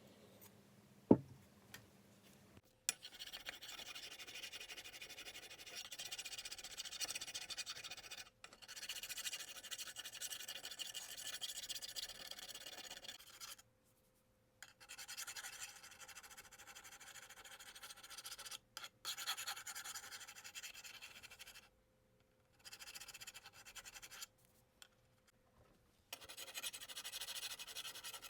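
Steady hand scraping and rubbing, as when abrading a pickaxe during restoration, heard in several long stretches that start and stop abruptly at cuts. A single sharp click comes about a second in.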